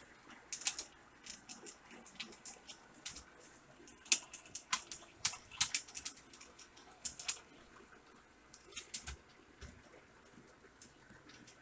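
HO scale model train rolling along its track, giving irregular light clicks and ticks from the wheels and cars.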